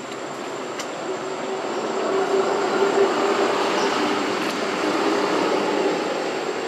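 A passing engine, a steady drone that swells about two seconds in and fades again near the end.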